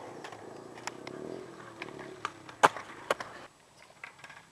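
Skateboard wheels rolling on pavement with a series of sharp wooden clacks from the board, the loudest about two and a half seconds in. The rolling noise drops away suddenly about three and a half seconds in.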